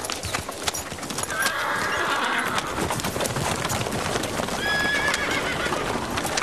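Horses' hooves clip-clopping as riders and a horse-drawn chariot set off at pace. A horse neighs about a second in and again, more briefly, near five seconds.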